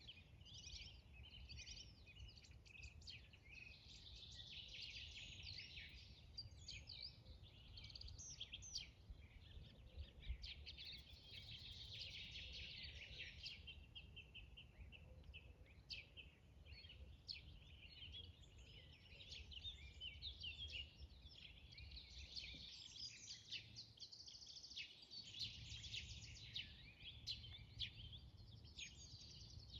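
Many small songbirds chirping and trilling at once in a faint morning chorus, over a steady low rumble.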